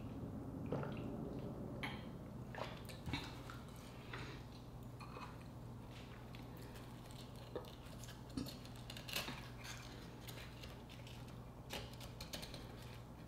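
Scattered soft clicks and scrapes of a wooden spoon digging roe out of an opened sea urchin's shell, over a faint steady low hum.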